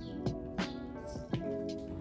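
Background music: soft held chords over a steady drum beat.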